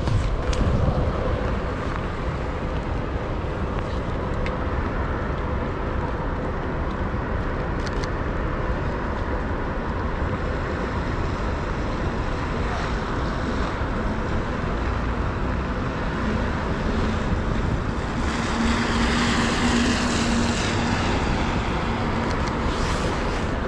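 Heavy rain on a city street with traffic running on the wet road. A car passes close about three-quarters of the way through, its tyres hissing on the wet surface.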